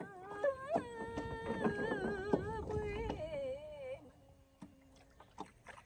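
A woman singing a Vietnamese folk melody in long, bending held notes, which drop away about four seconds in. A few sharp knocks sound along with the singing.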